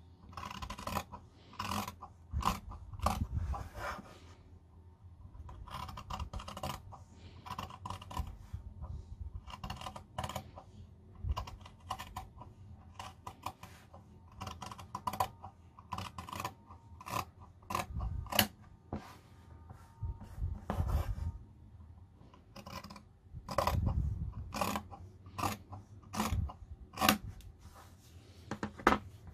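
Scissors cutting cotton fabric: a long run of short snips in irregular bursts, with brief pauses between.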